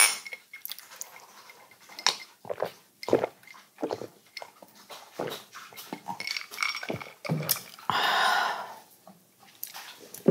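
Two glasses of beer clink together in a toast, with a short ringing note. A run of gulps and swallows follows as both drink the beer.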